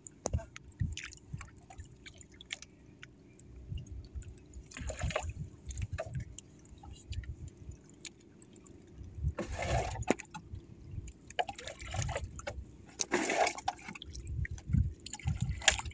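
Sea water lapping and sloshing against the hull of a small outrigger boat, with three louder splashing surges at about five, ten and thirteen seconds over a low, uneven rumble.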